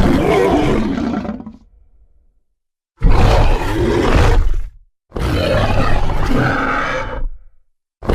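Indominus Rex creature sound effect: a run of rough, deep dinosaur roars about two seconds each, with short silences between them. One roar fades out in the first two seconds, two more follow, and another begins at the very end.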